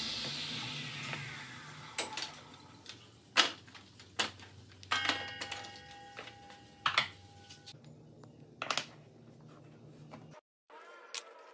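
Table saw blade winding down after a cut, its noise fading over the first two seconds. Then small cut wooden blocks clatter and knock against each other and the saw table as they are gathered by hand, in a dozen or so separate sharp clicks.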